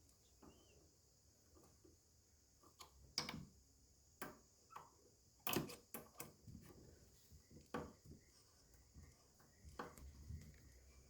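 Faint scattered clicks and knocks of small parts being handled as a carbon brush holder is pushed into place on a washing machine motor, with a handful of sharper taps through the middle.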